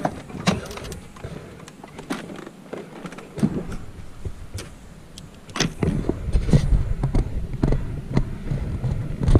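Camera handling noise: a series of clicks and knocks as the camera is carried about, with wind buffeting the microphone from about halfway through.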